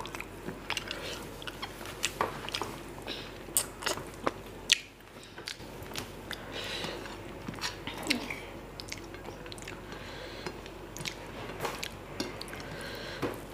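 A person chewing mouthfuls of mutton biryani eaten by hand, with irregular wet mouth clicks and smacks.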